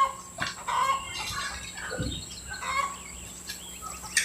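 Chicken clucking: a run of short, irregular clucks.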